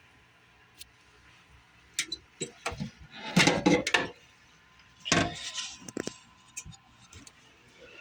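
Scattered clicks, knocks and rattles of objects being handled, with a dense cluster about three and a half seconds in and another about five seconds in.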